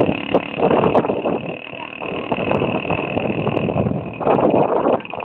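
Motorcycle tricycle (motorcycle with sidecar) running along a road, its engine heard from the roof with wind noise surging in and out, loudest about a second in and again near the end.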